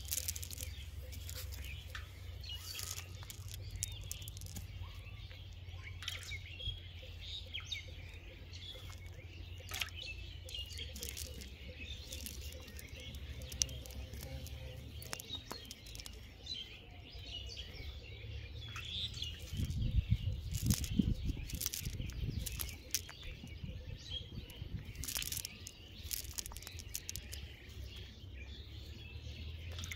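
Small birds chirping and tweeting, with scattered light clicks and rustling as the net is handled. A louder low rumble comes about two-thirds of the way through.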